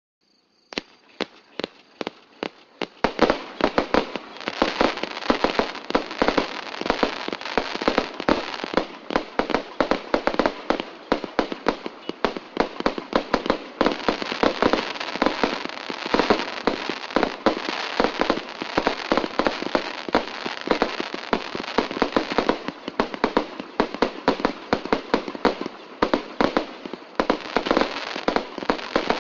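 A multi-shot firework battery (cake) firing. A few separate shots come in the first seconds, then from about three seconds in a rapid, unbroken barrage of shots and bursts.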